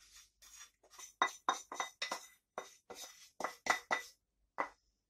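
A wooden spoon knocking and scraping in a small metal saucepan held over a glass bowl, a quick run of light clinks about three or four a second that stops shortly before the end.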